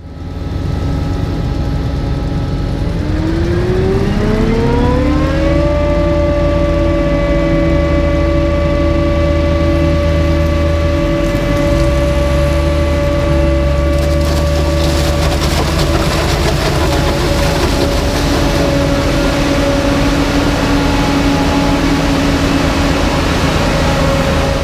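Claas Jaguar forage harvester running at work: a whine made of several tones rises in pitch over a few seconds and then holds steady over the deep rumble of the machinery. A hissing rush joins about halfway through.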